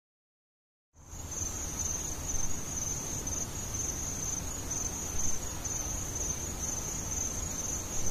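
A steady high-pitched trill, typical of crickets, over low background hiss and rumble, starting about a second in after a moment of silence.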